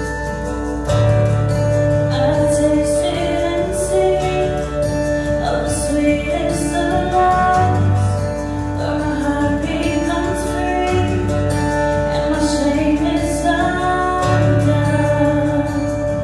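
Praise song with a female singer and instrumental backing, including guitar, and a steady bass.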